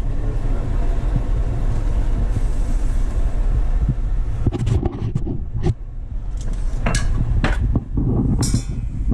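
Steady low rumble of handling noise on a handheld camera's microphone, with several sharp clicks and knocks in the second half.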